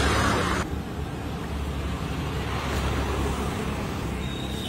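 Steady low rumble of outdoor street traffic, with no distinct events in it. The sound changes abruptly about half a second in, where the picture cuts.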